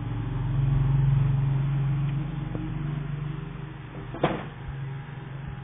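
A low mechanical hum that swells to its loudest about a second in, then slowly fades, with a single sharp click about four seconds in.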